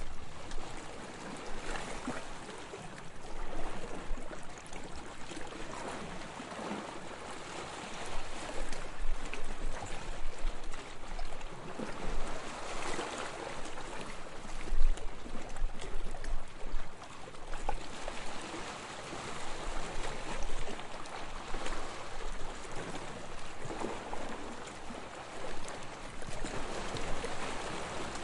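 Sea water lapping and splashing in small waves: a continuous wash with uneven swells and fine crackling splashes.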